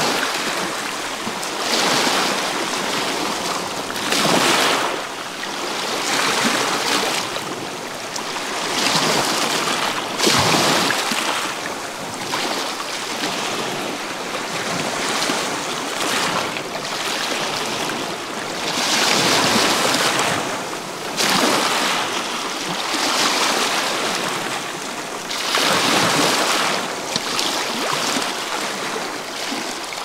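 Small sea waves breaking and washing in and out over a pebble beach, a rushing hiss that swells and fades every two to three seconds.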